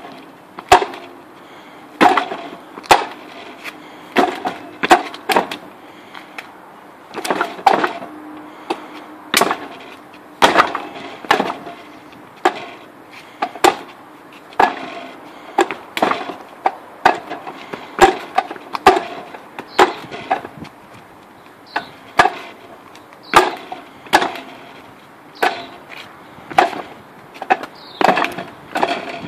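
Wooden Wing Chun dummy being struck by hands and arms: a running series of sharp wooden knocks in irregular clusters, often two or three in quick succession, as the dummy's arms and trunk are hit.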